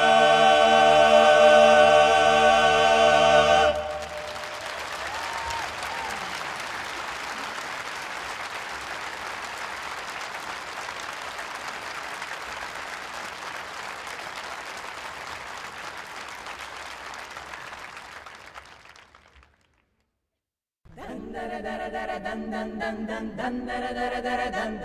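An a cappella choir singing in Croatian holds a final chord and stops about four seconds in. Then comes a steady splash of water from a spring spout for about fifteen seconds, fading away. After a short silence the a cappella singing starts again near the end.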